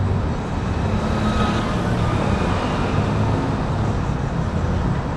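Steady traffic noise from a busy city road: a continuous rumble of passing cars and motorbike engines.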